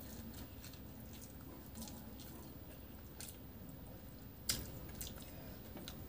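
Faint eating sounds: chewing a mouthful of rice with scattered small wet clicks, and fingers squishing rice and curry together on the plate. A sharper click comes about four and a half seconds in.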